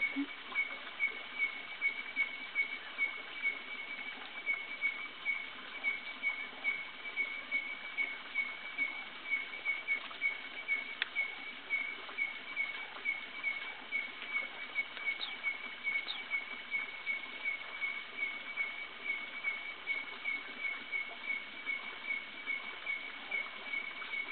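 Night-time forest ambience: one animal calls a steady, even series of short high chirps, about two to three a second, over a faint background hiss. Two brief higher rising squeaks come about two-thirds of the way through.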